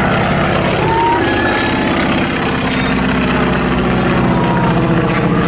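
Boeing P-26 Peashooter's Pratt & Whitney Wasp radial engine running steadily on a flyby, a continuous propeller-plane drone.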